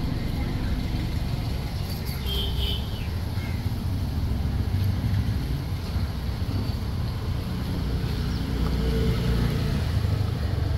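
Motorcycle engine running close by amid road traffic, a steady low rumble.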